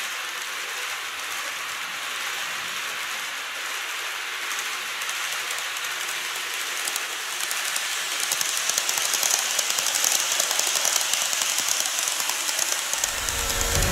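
Model trains rolling on track: a steady hiss of small wheels and motors with fine, rapid clicking, growing louder from about seven seconds in as the 787 series EMU model passes close by. Music comes in near the end.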